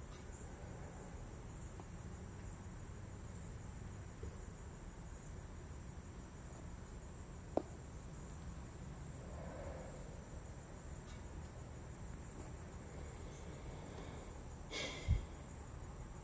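Faint insect chirping: a high chirp repeating about four times every three seconds over a steady hiss. A sharp click sounds about halfway, and a louder knock comes near the end.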